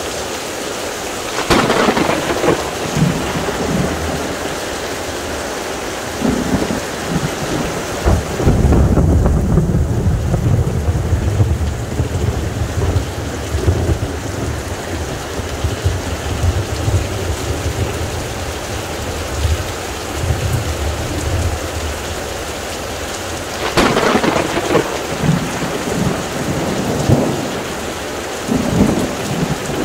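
Heavy rain pouring steadily during a thunderstorm. A sharp thunder crack comes about a second and a half in, and a long, deep rumble of thunder rolls on for about twelve seconds from around eight seconds in. Another sharp crack follows a few seconds before the end, with smaller claps after it.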